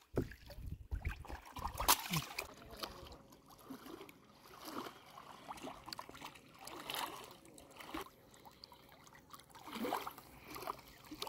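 River water sloshing and splashing around people wading chest-deep, in irregular surges, with a sharper sudden sound about two seconds in.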